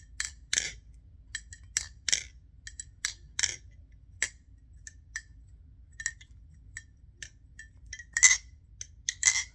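Balisong (butterfly knife) being flipped: an irregular string of sharp metallic clicks and clacks as the aluminium handles and blade swing on their washered pivots and snap against each other, loudest near the end.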